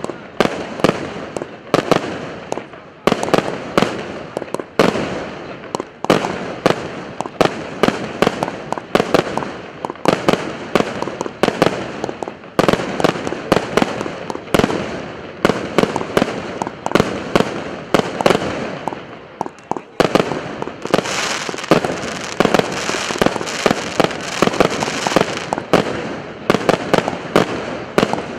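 A 100-shot fireworks battery (cake) firing in quick succession, a sharp bang about every half second, each trailing off. From about twenty seconds in, a dense steady hiss fills the gaps between the bangs.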